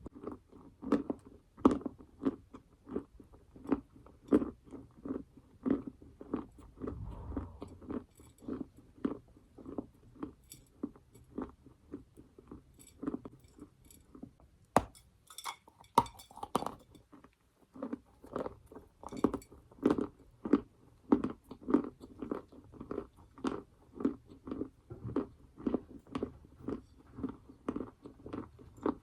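Close-miked chewing of a dry, chalky mouthful of edible clay or chalk, crunching at about two chews a second. A little past the middle the chewing pauses for a sharp crack and a short, bright crunch as a fresh piece is bitten off, then carries on.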